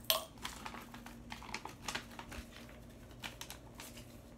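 Handling noise: a string of irregular light clicks and taps as a phone is held and moved, the sharpest click right at the start, thinning out near the end.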